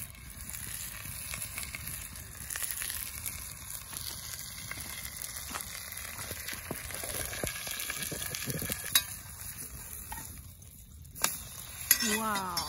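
Steak sizzling and frying in a black iron pot over a campfire, a steady hiss. A few sharp clicks come in the later part, and near the end a spatula scrapes and stirs in the pot.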